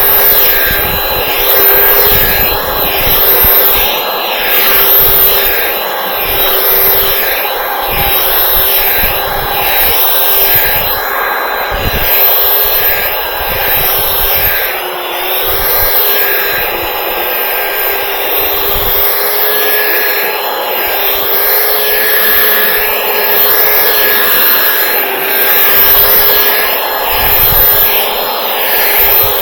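Ryobi belt sander running steadily with a whine, sanding splintery wooden deck handrails, the sound swelling and easing every second or two as it is worked back and forth.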